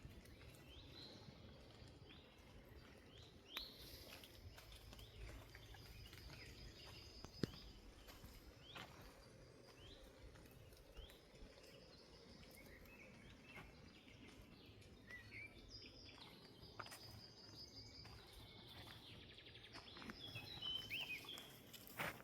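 Faint forest birdsong: a bird repeating short, falling chirps about once a second, with quick twittering calls from other birds a little past halfway and again near the end, over a low outdoor background hum.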